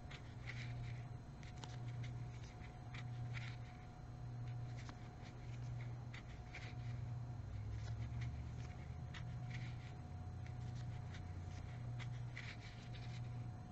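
Crochet hook and yarn scratching and clicking softly as stitches are worked, with scattered light ticks. Under it is a low hum that swells and fades about once a second.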